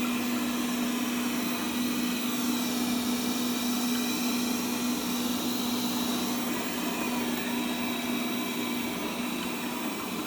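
Xiaomi Mi Robot Vacuum Cleaner running on a carpet: a steady whir with a low, constant hum, its higher whine wavering briefly a few seconds in.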